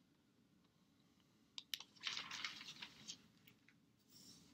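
Faint paper sounds of a Bible's pages being turned by hand: a couple of light ticks about a second and a half in, then a brief papery swish, and another soft rustle near the end.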